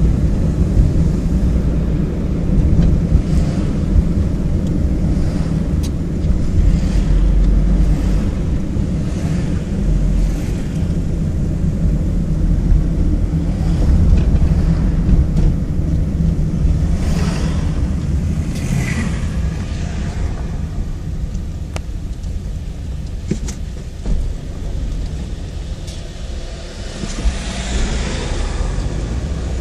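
Road noise heard from inside a moving car: a steady low rumble of engine and tyres, with oncoming vehicles passing a few times, around the middle and again near the end.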